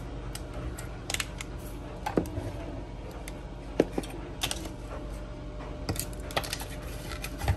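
Irregular light clicks and clinks of kitchen containers and utensils being handled on the counter, a few of them with a short ring.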